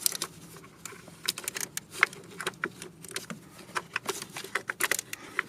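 Quarter-inch hand ratchet clicking in short, irregular runs as it is worked back and forth, tightening the small Torx screws that hold the eccentric shaft sensor.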